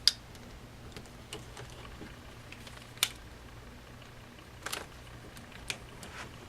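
Scattered small clicks and taps of a hand tool and small plastic and metal parts as the axle links of an RC crawler are unscrewed and handled, with a faint steady low hum behind.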